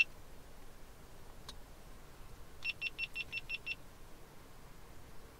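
Car's electronic warning chime beeping during an ECU reflash with the ignition on: a sharp click at the start, then about two and a half seconds in a quick train of about nine short high-pitched beeps lasting about a second.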